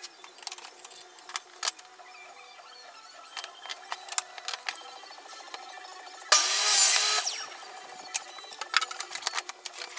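MDF panels being handled and set down on a plywood worktop: a scatter of sharp knocks and taps. A little past the middle comes one louder rushing noise that lasts about a second.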